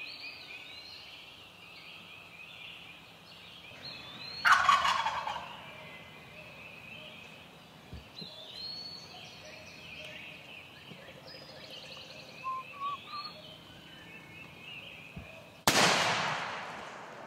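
Wild turkey gobbling loudly, once about four and a half seconds in and again near the end, over a steady background of songbirds singing.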